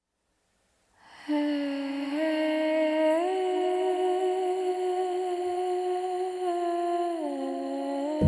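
Soft background music starting about a second in: a slow line of long held notes that steps up twice and drops back near the end.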